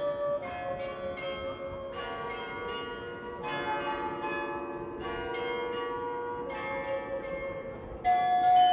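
Carillon of the Ghent belfry playing a slow melody, struck bell notes ringing out one after another with a transverse flute alongside. A louder, higher bell note sounds near the end.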